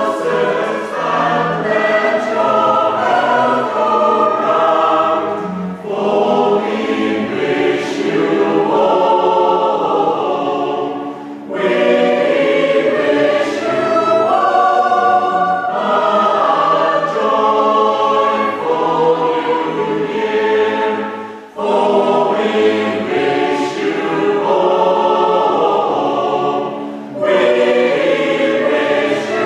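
Mixed West Gallery choir singing a Christmas song, accompanied by strings including a cello. The singing runs in phrases, with brief breaks between them four times.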